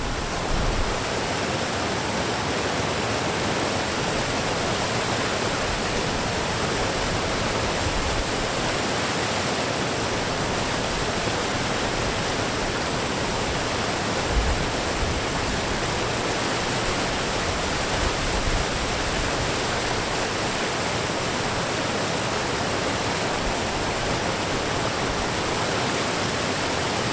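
Steady rush of falling water from a waterfall: an even hiss at a constant level, with a few brief low bumps on the microphone.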